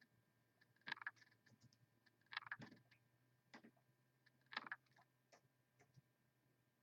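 Faint clicks and key taps of a computer mouse and keyboard, coming in small clusters roughly once a second, over a faint steady low hum.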